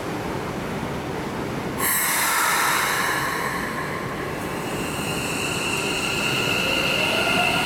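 Subway train approaching through the tunnel: wheels squealing on the curving track in several steady high tones. From about two seconds in, with a rising motor whine near the end. The train is a Keikyu commuter train.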